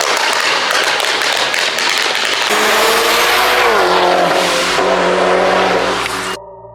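A car engine revving hard with a loud rushing, crackling exhaust noise, then settling as the engine note falls about four seconds in. The sound cuts off abruptly just before the end.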